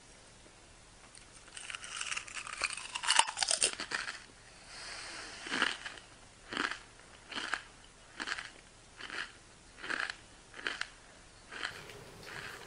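Someone chewing crunchy snack food: a dense stretch of crunching about two to four seconds in, then regular crunches roughly one every 0.7 s, about eight of them.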